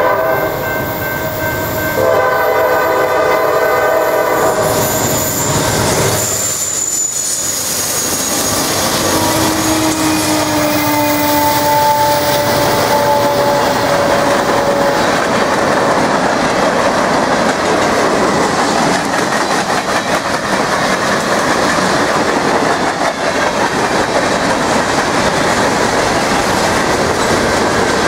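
Norfolk Southern GE C40-9W-led freight train sounding its horn in a held chord for about the first six seconds as it nears the crossing. Then the locomotives pass and a long string of freight cars rolls by, the wheels rumbling and clattering over the rail joints.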